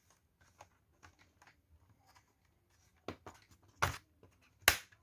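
Small plastic clicks and taps from a laptop's internal cable connector being latched, its small lever pushed down; a few faint ticks, then sharper clicks, the loudest two near the end.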